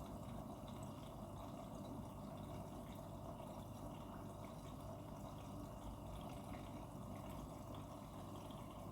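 Front-loading washing machine during its rinse cycle: faint, steady sound of water running and moving in the drum.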